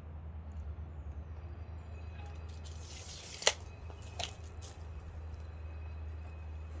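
A steel tape measure whizzing back into its case and snapping shut with one sharp click, followed by a lighter click less than a second later. A steady low hum lies under it.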